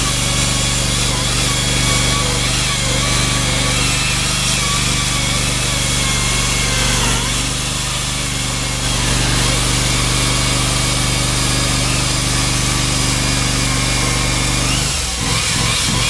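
Hydraulic diamond chainsaw cutting concrete with water feed: a steady grinding of the chain through the concrete over a constant low hum. The low hum shifts and turns uneven about a second before the end while the cutting noise carries on.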